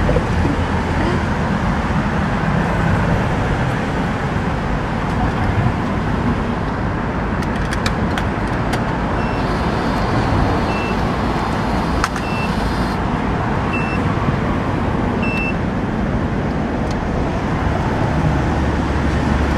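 Steady city street traffic noise from passing cars and buses. Midway, a short high beep repeats about every second and a half, five times, with a few sharp clicks around it.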